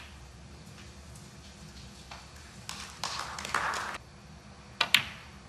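Quiet arena room tone, then near the end a sharp click of a snooker cue tip striking the cue ball.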